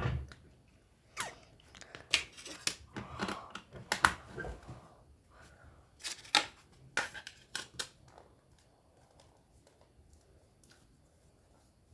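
Hands handling a mobile phone: irregular clicks, snaps and short rustles, stopping about eight seconds in.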